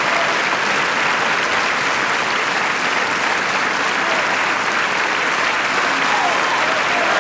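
Audience applauding steadily, a dense, even clapping that marks the end of a performance, during the curtain call.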